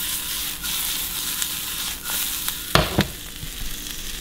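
Sliced bell pepper, onion and jalapeño sizzling and crackling in a stainless steel skillet as they cook down. Two clunks about three seconds in, as the tossed pan is set back down on the glass-top stove.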